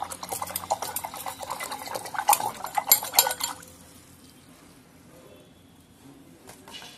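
Paintbrush swished and rattled around inside a stainless steel pot of water, clinking rapidly against the metal sides while the black acrylic paint is rinsed out. The clinking stops about halfway through.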